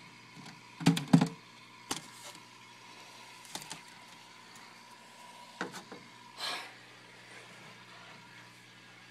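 Handling noises: a few sharp knocks and clatters, the loudest about a second in, and a short scrape a little after six seconds, over a faint steady tone.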